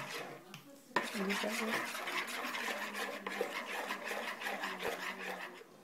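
A teaspoon stirring caster sugar and yeast into water in a ceramic bowl, scraping round the bowl in quick repeated strokes. It pauses briefly, then clinks sharply against the bowl about a second in.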